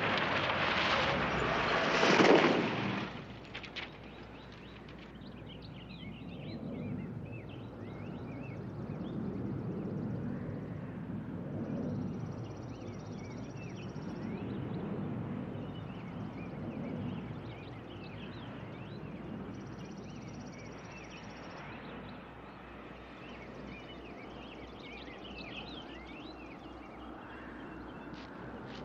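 A loud rush of noise for about the first three seconds, then scattered bird chirps over quiet outdoor ambience, with a low rumble that swells and fades through the middle.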